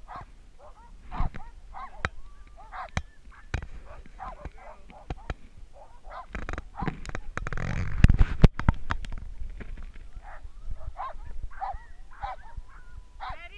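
Team of sled dogs yelping and howling in many short, high calls, eager to run while the sled is held on its brake. About halfway through there is a louder burst of rustling and knocks.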